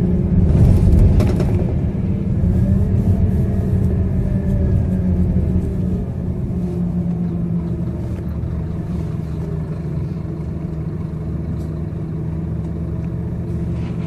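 Scania K230UB bus's five-cylinder diesel engine and drivetrain running under way, heard from inside the saloon. It is loudest in the first couple of seconds, then eases to a steady, lower drone from about six seconds in.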